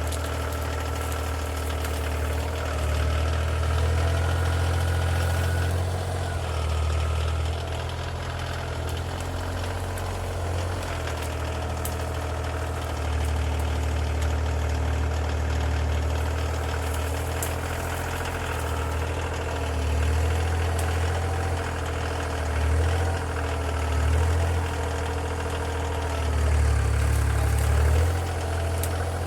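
Compact tractor's diesel engine running steadily at low revs, swelling briefly a few times near the end.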